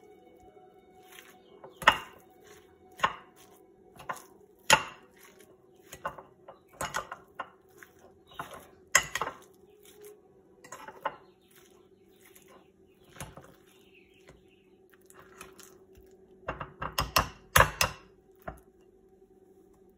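Metal fork clinking and scraping against a ceramic bowl while mixing ground meat substitute: irregular sharp clicks, with a quick flurry of them near the end. A steady faint hum runs underneath.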